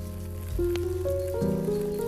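Background music: sustained chords over a low bass note, with a slow melody that steps from note to note and a new chord coming in near the end.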